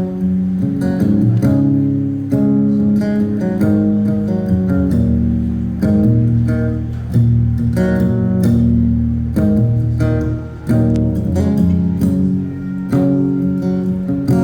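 Live band playing an instrumental song introduction led by strummed acoustic guitar, with chords changing every second or two over a low bass line.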